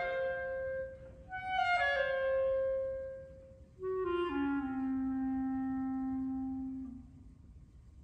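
Unaccompanied clarinet playing slow phrases of held notes. A falling phrase starts after a short break about a second and a half in, then a second phrase settles onto a long low note held for about three seconds, which stops about a second before the end.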